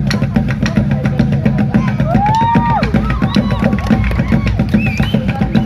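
Music with a steady drum-kit beat and a melody line that slides up and down in pitch.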